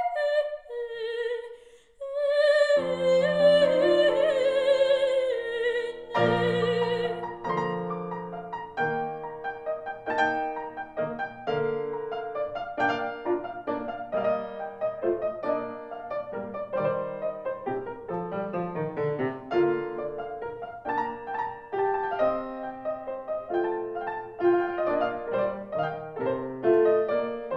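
A soprano sings the last phrases of the aria with wide vibrato over piano, and stops about six seconds in. A grand piano then plays on alone, the closing postlude of the aria.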